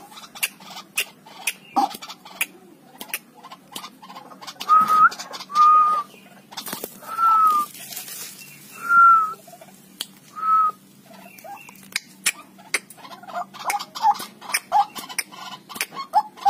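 White-breasted waterhen giving five short whistled notes around the middle, among a run of sharp clicks about once or twice a second.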